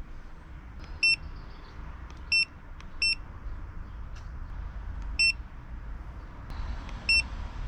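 Five short, high electronic beeps at irregular intervals, like key-press beeps from a handheld diagnostic scan tool plugged into the car, while it works through clearing an airbag fault code. A low rumble runs beneath them.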